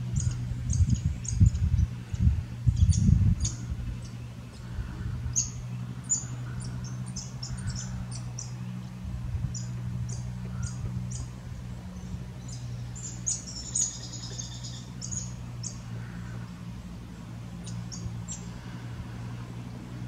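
Wild birds chirping in the tree canopy: many short, high chirps scattered throughout, with a brief flurry of them a little past halfway. For the first few seconds the filmer's breathing puffs heavily on the microphone, and a steady low hum runs underneath.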